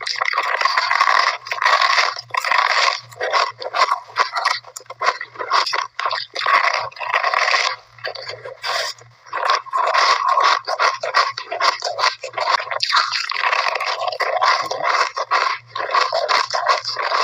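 A person chewing and crunching a mouthful of shaved ice. The sound is a dense, irregular run of crunches with many short sharp cracks and brief pauses between bites.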